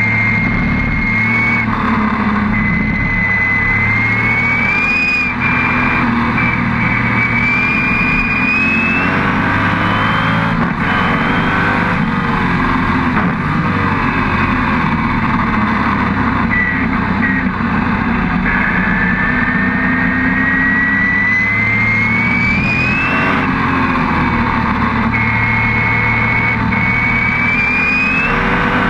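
Lola T70 Spyder's V8 engine running hard, heard onboard. Its high whine climbs in pitch with the revs several times and drops back at each gear change, with one long climb over about five seconds in the second half.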